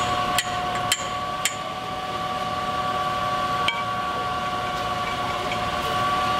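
A fire engine's pump running with a steady whine, mixed with sharp metallic clinks from the hydrant standpipe and hose fittings being handled. Four clinks come in the first second and a half, and one more near the four-second mark.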